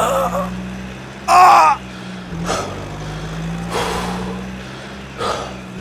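Truck engine sound effect: a steady low engine drone, with a brief loud wavering squeal about a second and a half in and several short hissing bursts spaced a second or so apart.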